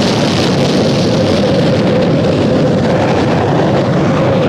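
Budweiser Rocket Car's hybrid rocket engine firing just after ignition: a loud, steady rushing noise with a steady mid-pitched tone running through it.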